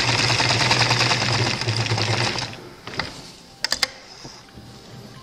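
Sewing machine stitching through a cardstock card at a fast, even rhythm of needle strokes, stopping about halfway through. A few light clicks follow.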